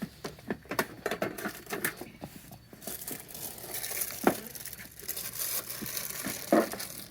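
Crinkling and rustling with many small clicks, the sound of a toy in its packaging being handled.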